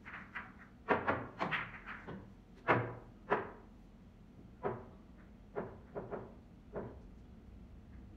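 Pool balls knocking and clacking against each other, a dozen or so sharp knocks, some in quick clusters, as the balls are gathered and set into the rack.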